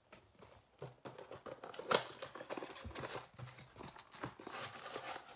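A cardboard Gypsy Queen baseball card box being pulled open by hand: cardboard flaps rustling and tearing, with a sharper snap about two seconds in.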